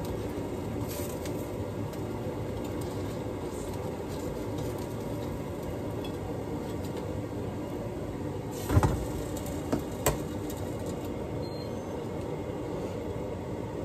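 Breaded fish fillets sizzling steadily in oil in a frying pan. A few short knocks of the spatula and the pan lid come about nine to ten seconds in.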